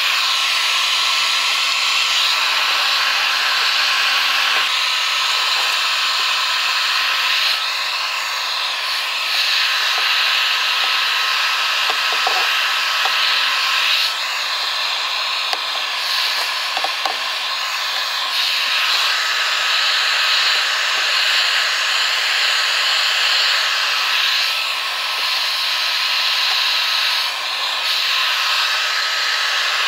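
Hot air gun blowing steadily, a rushing stream of air with a thin steady whine from its fan, heating PVC pipe until it softens enough to be formed around an inserted piece. A few light knocks come from the pipe being handled.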